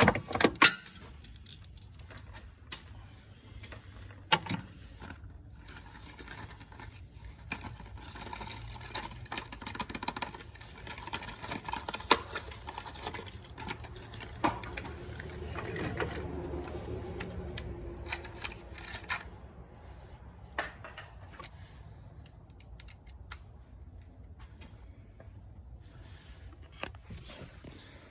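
Metal hand tools and spark plugs being handled during a spark plug change: repeated sharp clinks and jangling rattles of metal on metal.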